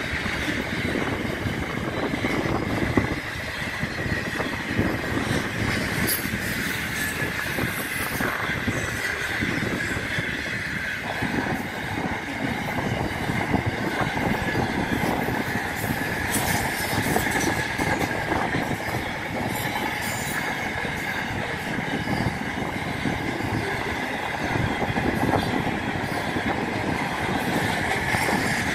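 Container freight train wagons rolling past, with a steady rumble of wheels on rail. A continuous high wheel squeal runs over it, and scattered sharp clicks and clanks come from the wagons.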